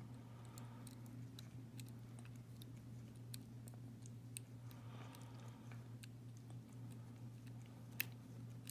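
Faint, irregular clicking and scratching of a lock pick working the pins of a Winkhaus euro cylinder lock under tension, with one sharper click about 8 seconds in. A steady low hum runs underneath.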